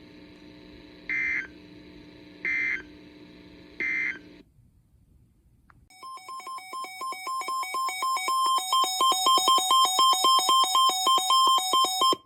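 Emergency Alert System end-of-message data bursts: three short buzzy bursts about a second apart over a low hum. After a pause, a weather alert radio's electronic alarm beeps rapidly, alternating between two pitches, grows louder and cuts off suddenly, signalling the next warning.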